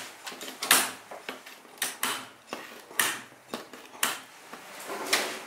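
Metal hand shears cutting grey rubber strips into short pieces: a sharp snip about once a second, with lighter clicks of the blades between cuts.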